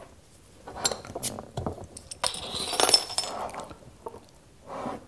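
Glass clinking and knocking: a stout bottle being handled and uncapped, and stemmed beer glasses clinking together as one is taken from the row. A few sharp clicks about a second in, a longer clatter of glass a little past the middle, and a softer knock near the end.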